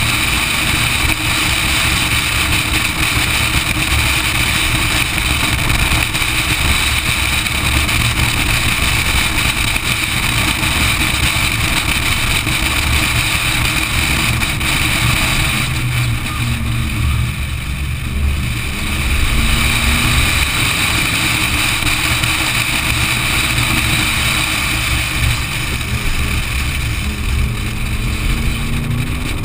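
V8 Supercar race car engine running hard at racing speed, mixed with heavy wind rushing over an externally mounted action camera. About halfway through the engine eases off and the sound dips, then the engine pitch climbs again as it accelerates, with another rise near the end.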